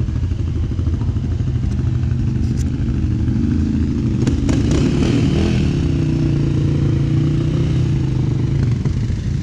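Can-Am 1000 ATV's V-twin engine running under throttle, its revs rising a few seconds in and then holding steady, with a few sharp knocks about halfway through.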